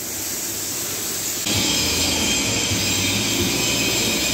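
A steady hiss, then about a second and a half in a machine starts suddenly and runs steadily with a low hum and a high whine.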